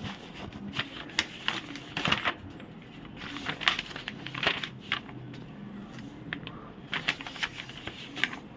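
Irregular light clicks, taps and rustling of objects being handled, with no steady machine sound.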